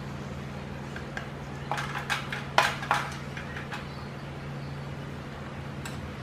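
A spatula scraping and knocking against a metal pan and a plate as stir-fried tofu and vegetables are served out. A few sharp clicks come about two to three seconds in, over a steady low hum.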